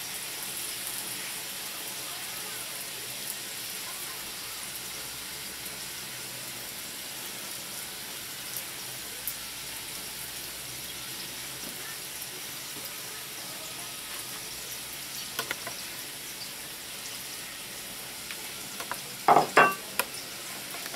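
Pizza dough base sizzling steadily as it fries in a cast-iron skillet, with a few light clicks and two loud knocks near the end.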